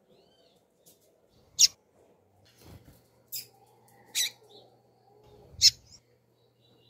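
Female double-collared seedeater (coleiro) giving short, sharp, high call notes, four of them at uneven intervals. These are the female's calls that keepers play to get male coleiros and papa-capins going.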